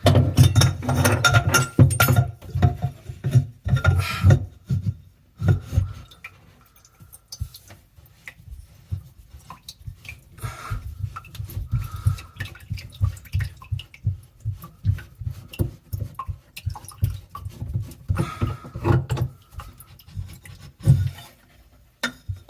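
Handling noises from taking apart a bathroom sink's drain: irregular knocks, clicks and rattles of the drain parts being worked loose by hand, busiest in the first several seconds.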